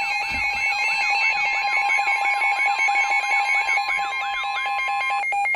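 Emergency alert tones from a weather radio broadcast: a steady attention tone layered with a warbling alarm that sweeps up and down about three times a second, announcing a new severe thunderstorm warning. The steady tone cuts off near the end.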